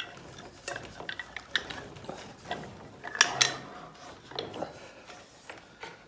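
A heavy electric induction motor, with its mounting bolts, being set down and shifted on a wooden mount block: scattered knocks, clunks and scrapes, with two louder knocks a little past three seconds in.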